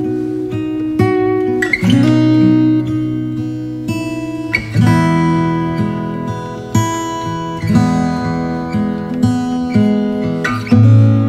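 Background music: an acoustic guitar playing, plucked and strummed chords changing about once a second.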